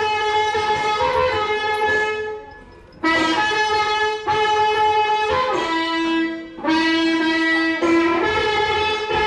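Music: a melody of long held notes, with a wind-instrument sound, breaking off briefly twice.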